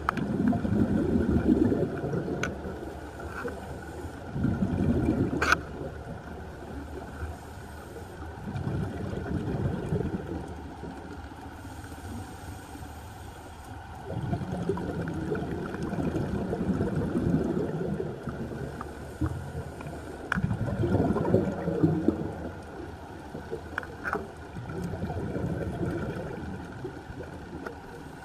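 Scuba diver breathing through a regulator underwater: exhaled bubbles come as low rumbling, gurgling swells every few seconds, with a few sharp clicks between them.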